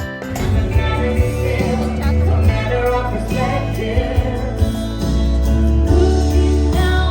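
Music with singing over a heavy, steady bass line.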